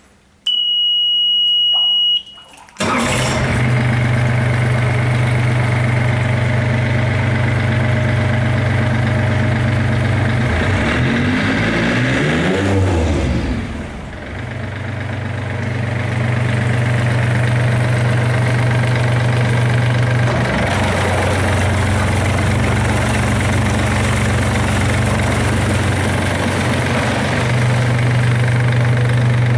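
A high steady beep sounds for about two seconds. Then a Yanmar D36 diesel outboard starts about three seconds in and runs steadily near idle. Its pitch dips and sweeps briefly near the middle, and it shifts slightly twice later as the throttle and shift cables are worked.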